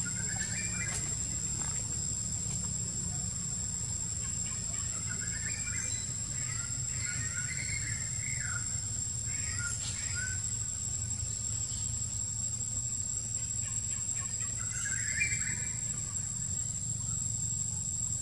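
Steady high-pitched insect chirring over a low steady rumble, with a few short bursts of animal calls about a second in, around the middle, and again near the end.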